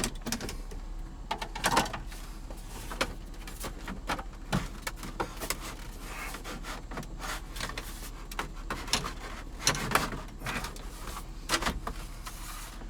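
Hard plastic interior trim pieces of a car's center console being handled and fitted, giving irregular clicks, taps and knocks.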